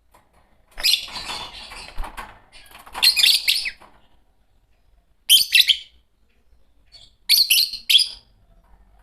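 Fischer's lovebirds giving shrill, high-pitched chirping chatter in four short bouts, with brief pauses between them.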